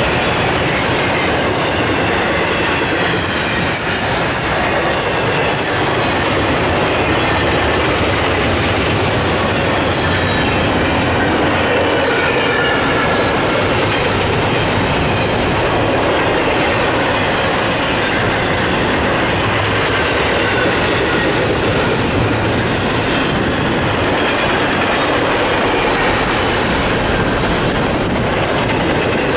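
Double-stack intermodal freight cars of a fast CSX train rolling past: a steady, loud noise of steel wheels running on rail, with clicks over the rail joints and a faint wavering squeal from the wheels.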